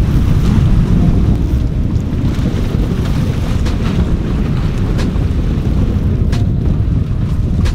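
Wind buffeting the microphone: a loud, steady low rumble, with a few faint clicks scattered through it.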